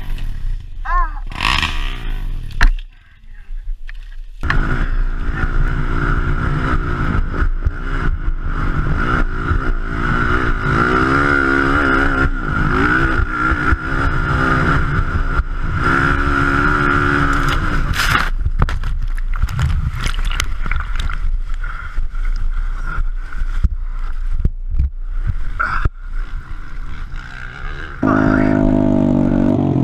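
A loud sharp knock about two and a half seconds in, then from about four seconds in a dirt bike engine running hard, its pitch rising and falling as it revs up and down. Near the end the engine note drops to a lower, steadier pitch.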